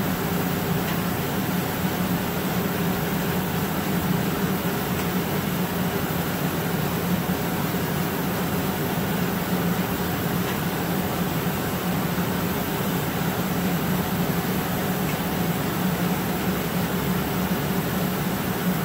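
Gas-fired glassblowing glory hole and its burner blower running, a steady rushing noise with a low hum that does not change.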